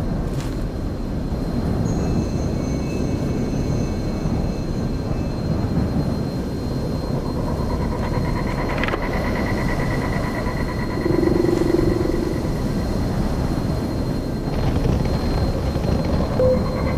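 Low, steady rumble of a Formula E electric race car on the move, with the drivetrain's high whine coming in at a steady pitch about eight seconds in.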